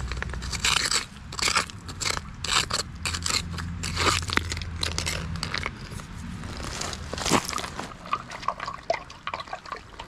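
A hand digging and scraping through creek-bed gravel, pebbles and small stones crunching and clacking against each other in quick, irregular strokes.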